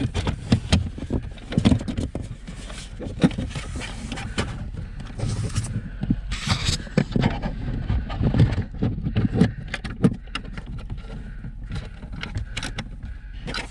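Plastic interior trim, a lower tray, being handled and fitted back into a car: irregular knocks, clicks and scraping of plastic on plastic.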